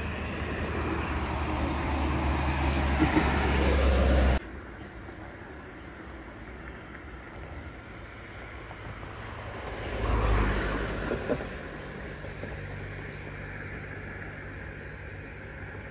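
Road traffic: a vehicle passing close by, growing louder over the first four seconds and then cut off abruptly. After that comes a lower, steady traffic hum, with another vehicle passing about ten seconds in.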